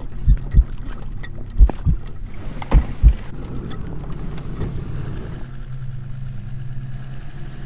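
Deep heartbeat-like double thumps repeat about once a second for the first three seconds or so, over a low hum. After that a steady low drone of a bass boat's outboard engine running carries on.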